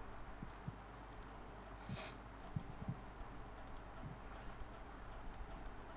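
Faint computer mouse clicks, scattered at about one or two a second, with a few soft low thumps, over a faint steady hum.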